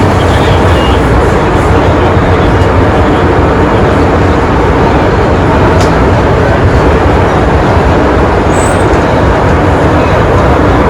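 Inside an MTR Island Line M-train car running at speed through the tunnel: a loud, steady rumble of wheels, motors and air with no letup.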